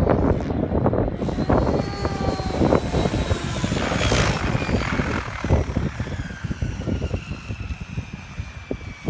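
JR Forza 700 electric RC helicopter's rotor and motor: a loud whoosh of the rotor blades about four seconds in as it comes down to land, then a thin high whine falling steadily in pitch as the rotor spools down and the sound fades.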